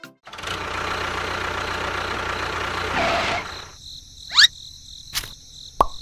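Tractor engine running steadily for about three seconds, then stopping. A short rising whistle follows, and near the end a quick, even run of plops.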